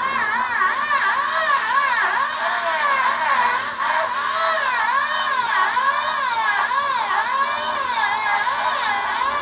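Angle grinder cutting the sink opening in a granite countertop, its whine rising and falling about twice a second as the blade loads and frees up in the stone.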